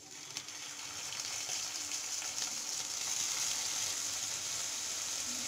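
Raw chicken pieces sizzling as they hit hot oil with fried onions in a frying pan. The sizzle starts suddenly as the meat goes in and grows louder over the first couple of seconds, then holds steady.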